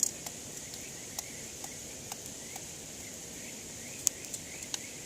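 Campfire crackling: sharp, irregular pops from the burning wood, the loudest right at the start and about four seconds in, over a steady high hiss and faint repeated chirps in the background.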